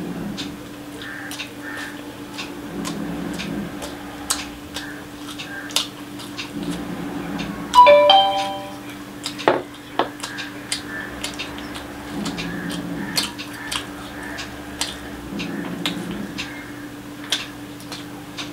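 Close-up eating sounds: chewing and mouth smacks with many small clicks, and fingers mixing fried rice with curry on a plate. About eight seconds in comes a brief loud pitched sound, and just before ten seconds a sharp knock.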